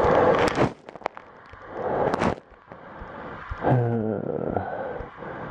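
A man breathing hard after a run: heavy, noisy breaths about every two seconds, the one about two-thirds of the way through voiced like a low groan, with the microphone held close.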